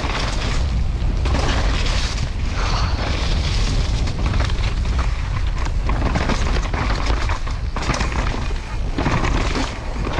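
Wind rumbling over an action camera's microphone on a mountain bike riding fast down a downhill track, with steady tyre noise and frequent knocks and rattles of the bike over rough ground.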